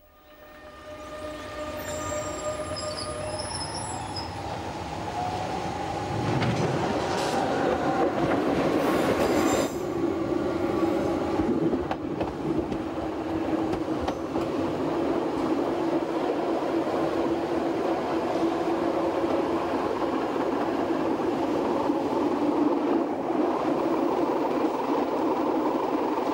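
A Fribourg Railways (GFM) metre-gauge electric train pulling away and running along the track. The sound builds over the first couple of seconds, with a short steady tone at the start. There is a harsher, louder stretch of wheel noise about six to ten seconds in, and after that a steady running noise with a constant humming tone.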